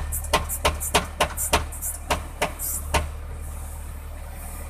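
Volvo wheel loader's diesel engine idling as a steady low hum in the cab. Over the first three seconds there is an uneven run of sharp clicks and knocks.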